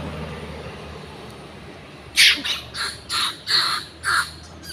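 Long-tailed macaque screaming: a quick series of about six harsh, screeching calls starting about two seconds in, during a squabble in which one monkey bites another's tail.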